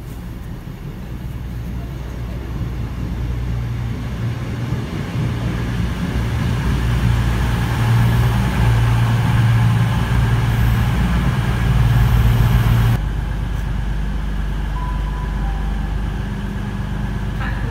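CrossCountry Class 220/221 Voyager diesel multiple unit running into the platform, its underfloor diesel engines and wheel-on-rail rumble growing steadily louder as it draws alongside. About two-thirds of the way through the sound cuts off abruptly to a quieter, steady engine hum as the unit stands at the platform.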